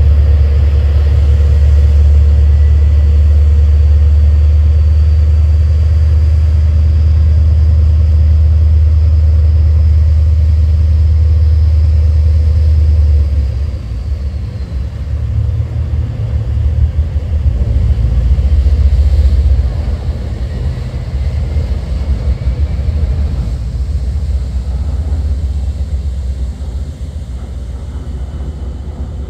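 Catamaran ferry's engines running hard as it manoeuvres off its berth: a loud, steady deep rumble with churning propeller wash. About halfway through the rumble drops and becomes uneven, swells again for a moment, then settles lower as the ferry pulls away.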